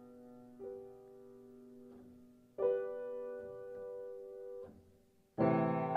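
Background music of slow, held piano chords. A new chord comes about half a second in, a louder one at about two and a half seconds, and a fuller, louder chord near the end.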